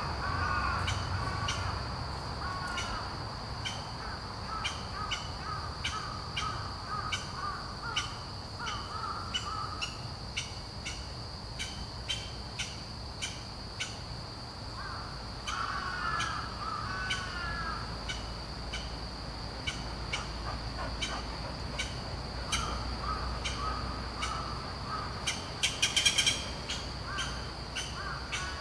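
Japanese green woodpecker calling in several bouts of quick, repeated, falling notes, over a steady high-pitched insect drone.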